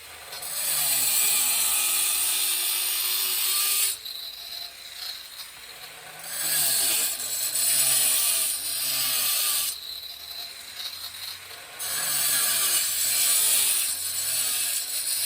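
Angle grinder with a diamond blade grinding through tile in three loud passes of a few seconds each, dropping to a quieter running sound in between as the blade eases off the cut.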